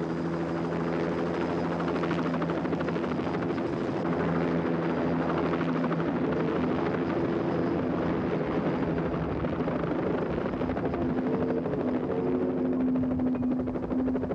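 Light turbine helicopter hovering with a kayak on a sling line beneath it, lifting the load off the ground. Steady engine whine and rotor chop, the pitch shifting slightly about two-thirds of the way through.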